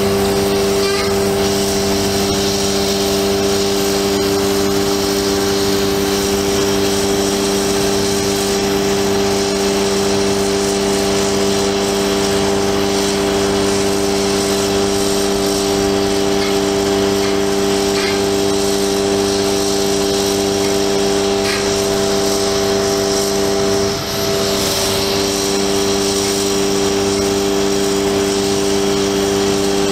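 Steady drone of a truck engine and hydraulic pump powering a Palfinger PK32080 articulating crane while its boom is being operated. About 24 seconds in there is a brief dip and a shift in tone.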